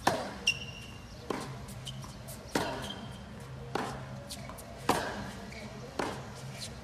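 Tennis rally on a hard court: sharp pops of ball on racket strings about every two and a half seconds, each answered by a softer bounce of the ball on the court in between. Brief high shoe squeaks follow the first hit.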